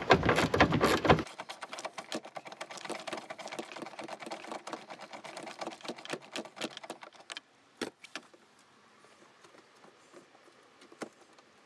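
Small ratcheting driver clicking rapidly as a 10 mm bolt behind a plastic trim panel is backed out, after about a second of louder handling noise. The clicking stops about three quarters of the way in, leaving a few scattered clicks.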